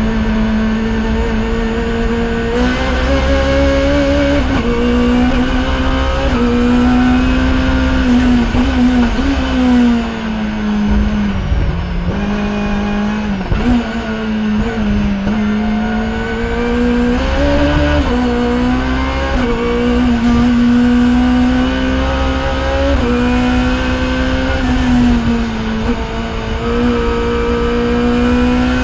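Race-prepared VW Scirocco rally car's engine heard from inside the cockpit, running hard up a hill climb. The revs climb and drop again and again with gear changes, with a longer fall and pick-up about ten to fourteen seconds in as the car slows for a bend.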